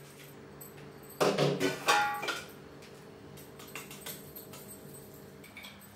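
Steel kitchenware clinking and rattling: black peppercorns tipped from a steel plate into a mixer-grinder jar, heard as a short burst of metallic clinks and rattle about a second in. Faint steady low tones run underneath and stop near the end.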